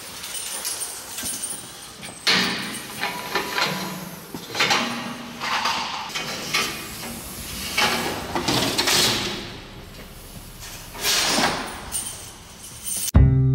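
Irregular scraping and clattering noises, a noisy stroke every second or two. Acoustic guitar music comes in abruptly near the end.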